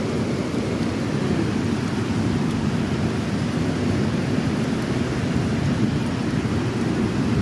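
Heavy downpour of rain: a steady, dense wash of noise, fullest in the low range.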